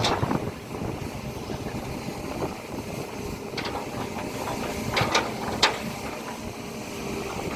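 Excavator at work: its diesel engine runs steadily, broken by sharp knocks. There is one knock at the start, another about three and a half seconds in, and three in quick succession around five seconds in.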